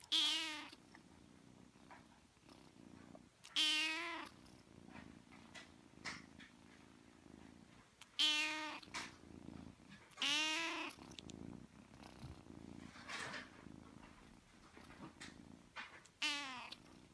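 A kitten meowing about five times, each meow short, with quiet pauses in between.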